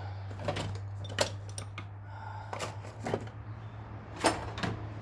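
Rummaging through a pile of tools and parts: scattered clicks and knocks of hard objects being moved, the loudest about four seconds in, over a steady low hum.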